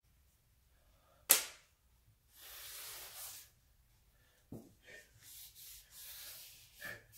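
A single sharp knock about a second in, then a rag rubbing along the grinder table's metal slideways, wet with WD-40, in several short wiping strokes, with a couple of lighter clicks between them.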